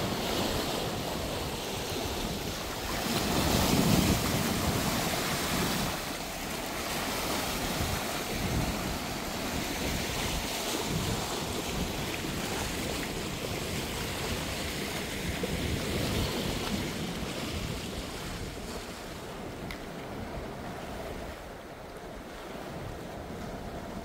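Sea waves washing in, with wind rumbling on the microphone. The wash swells a few seconds in, then eases.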